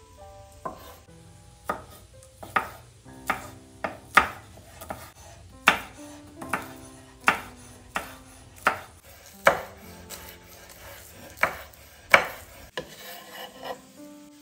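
Chef's knife slicing green onions on a wooden cutting board: an unhurried series of sharp knocks of the blade on the board, a little more than one a second. Near the end the knocks give way to softer scraping as the chopped onion is scooped up on the blade.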